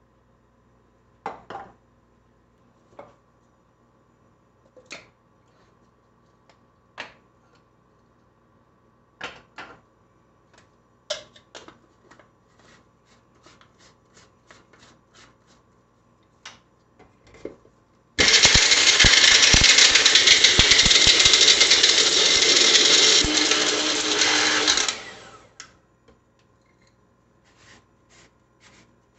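Small electric personal blender grinding chunks of chaga mushroom: a loud steady run of about seven seconds that then spins down. Before it come scattered clicks and knocks as the jar and bowl are handled and the jar is fitted to the base.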